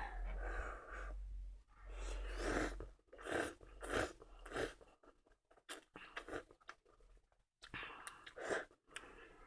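A person eating spicy stir-fried instant noodles close to the microphone: mouth and chewing noises, with a run of short strokes about every half second.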